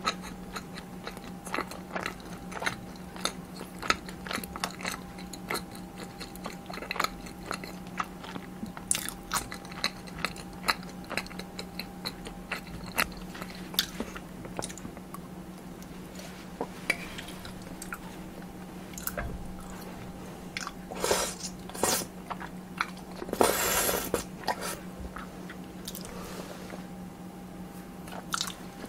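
A person chewing and biting food close to the microphone: a run of small crunches and wet clicks, with a couple of louder, longer crunches later on. A faint steady hum runs underneath.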